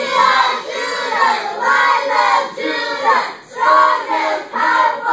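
A group of children chanting a cheer together in unison, in short rhythmic phrases.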